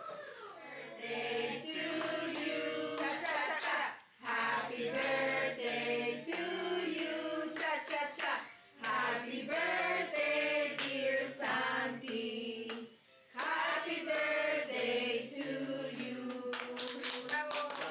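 Slow sung ballad: voices singing in harmony over soft backing music, with a run of quick clicks near the end.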